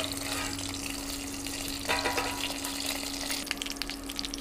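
Stuffed capsicums frying in mustard oil in a kadai, a steady sizzle, with a brief metal clatter about two seconds in as the lid is lifted off. A steady low hum runs underneath.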